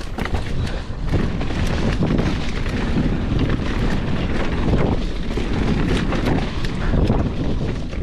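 Mountain bike riding fast over rough trail: wind rumbling on the camera microphone, with tyres on dirt and rock and the bike rattling through many small knocks.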